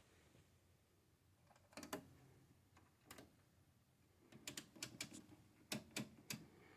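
Faint, scattered small clicks and light knocks, with a quick run of them in the second half, from oscilloscope controls and test leads being handled.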